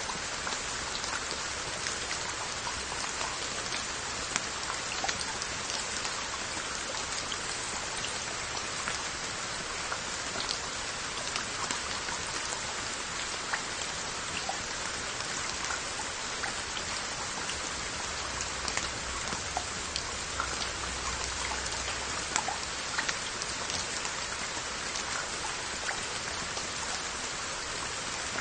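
Steady rain falling on glazed earthenware onggi jars and their lids, a constant hiss with many individual drops ticking sharply on the pottery.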